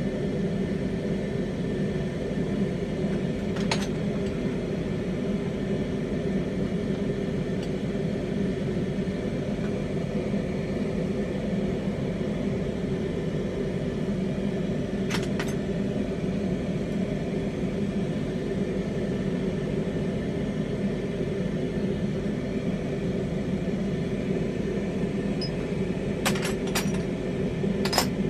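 Glassworking bench torch burning with a steady low rush. A few light clicks sound over it: one about four seconds in, one midway, and a quick cluster near the end.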